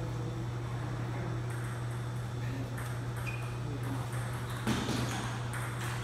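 Steady low hum in a large hall with scattered faint clicks of table tennis balls being hit at nearby tables, and one louder knock about five seconds in.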